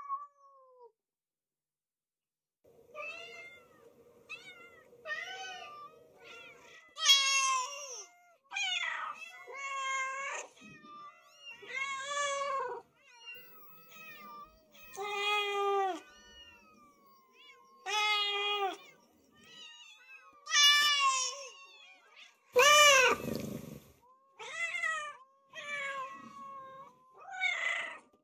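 A cat meowing over and over, one meow every second or two, with one louder, longer meow about two-thirds of the way through.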